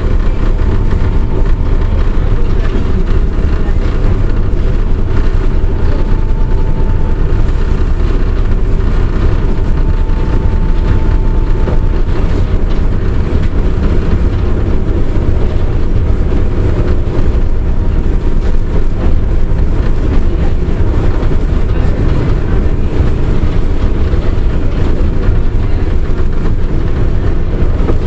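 Tatra T4YU tram running along the line, heard from inside the car: a loud, steady, deep rumble from the running gear. A faint high whine comes and goes during roughly the first twelve seconds.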